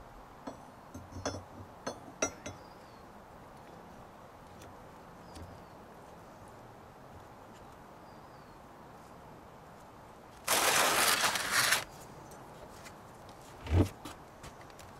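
Steel front axle shaft and U-joint yoke being handled on a workbench: a few light metal clinks, then a loud rush of noise lasting just over a second about two-thirds of the way through, and a heavy thump near the end as the shaft is set against a wooden beam.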